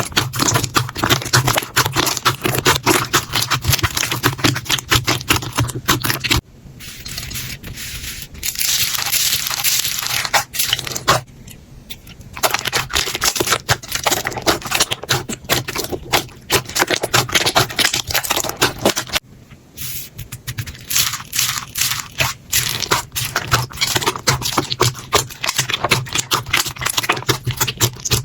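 Slime being handled, making a dense run of small clicks and pops, with softer stretches about six, eleven and nineteen seconds in.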